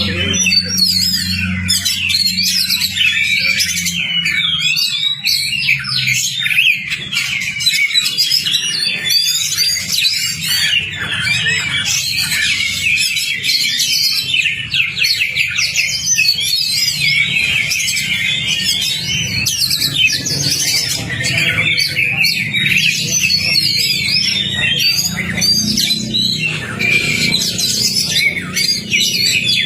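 Oriental magpie-robin (kacer) singing a fast, unbroken song of varied whistles, trills and chattering notes, the kind of song played to set a kept magpie-robin into its aggressive full-song display. A steady low hum runs beneath it.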